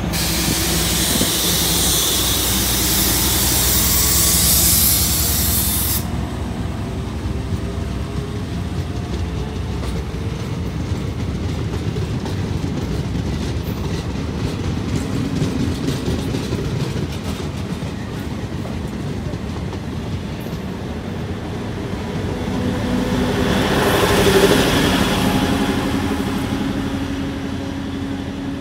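Diesel-hauled passenger train passing at a station, with steady low wheel rumble. A loud hiss sits over the train noise for about the first six seconds and cuts off suddenly. About 24 seconds in, a DEMU's running noise swells and then fades as it goes by.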